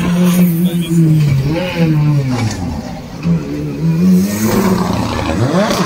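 Rally car engine revving, its pitch rising and falling unevenly, dipping once midway, with a quick rising rev near the end.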